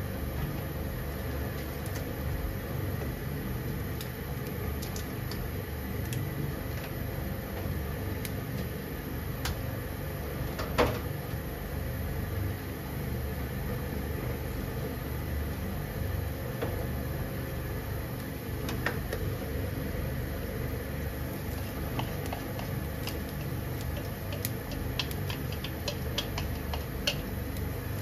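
Water boiling in a frying pan on a stove burner: a steady low rumble with scattered small pops, one sharp knock about eleven seconds in, and a run of clicks near the end.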